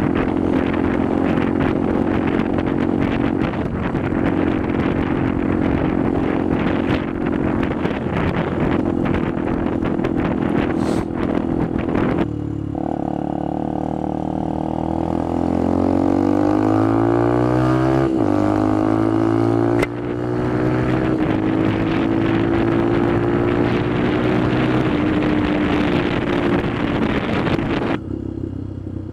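Benelli TNT 125's single-cylinder engine running steadily at speed under wind noise on the helmet microphone. About midway the engine pitch climbs as the bike accelerates, drops with a gear change, climbs again, then holds steady.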